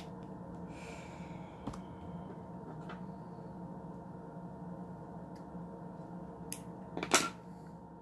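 Steady low hum with a few faint clicks, then a short, louder rustle and scrape about seven seconds in as a hand lifts a ball python egg from the incubator tub.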